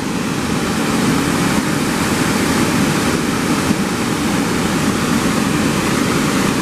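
Steady rush of Blackwater Falls, a large waterfall in full flow pouring over a rock ledge into the river below.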